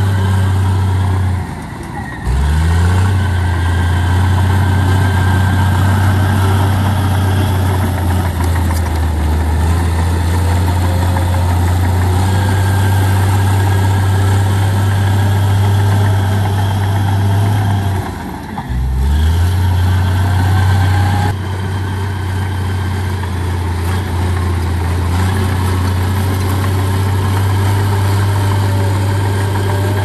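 Heavy diesel engine of earthmoving machinery running steadily. Twice, about two seconds in and again past halfway, the engine sound drops away for a moment and comes back rising in pitch.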